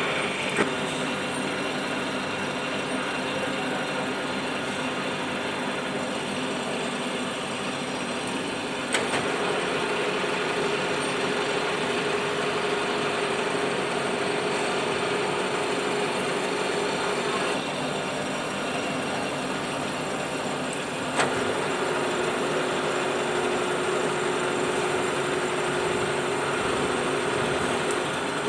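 WMW BFT 80 horizontal boring machine running with a steady hum while its rotary table turns. A sharp click about nine seconds in brings in a steady whine that dies away a few seconds later. Another click around twenty-one seconds brings the whine back.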